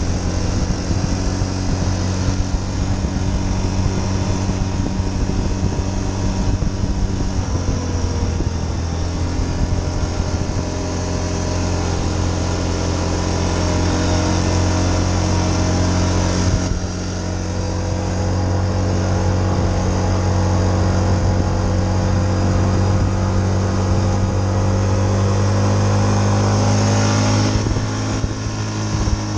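Yamaha Bruin 350 ATV's single-cylinder four-stroke engine running steadily under way at cruising speed. The engine note dips briefly about halfway through and again near the end.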